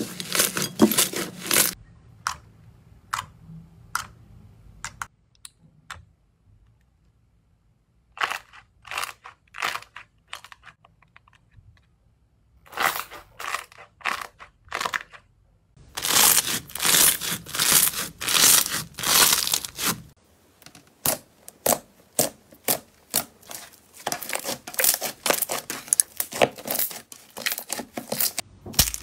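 Slime being pressed, squashed and kneaded by hand: sticky squelching and tearing with runs of short sharp pops and clicks, dropping to a quiet pause a few seconds in before the pops come thick again.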